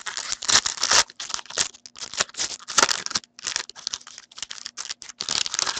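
Plastic wrapper of a hockey card pack being torn open and crinkled by hand: a continuous, irregular crackling and rustling.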